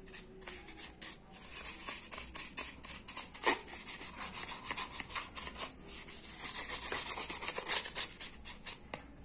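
A small brush scrubbing a smartphone's charging and headphone jacks with rubbing alcohol: quick scratchy strokes, louder in the second half.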